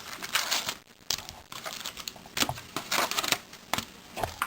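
Plastic and foil trading-card packaging being crinkled and torn open by hand, in a series of irregular rustles and crackles.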